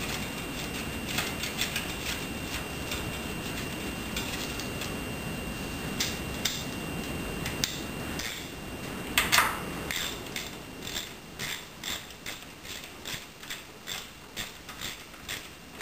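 Socket ratchet clicking as two bolts are run down and snugged. There are scattered clicks at first and a louder clatter about nine seconds in, then an even run of clicks about two a second.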